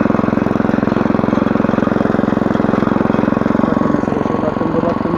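Walk-behind motor hoe running steadily, its small engine firing in a fast even beat as the rotary tines work the soil between crop rows. The engine note eases a little near the end.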